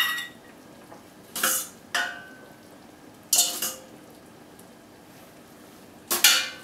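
A metal measuring cup scraping and clinking against a stainless steel colander as cooked orzo is scooped out, in about five separate strokes, each with a short metallic ring.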